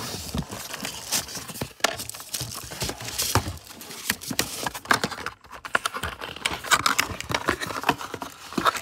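Packaging being handled while unboxing a keyboard: foam and plastic crinkling and rustling, with many small knocks and clicks.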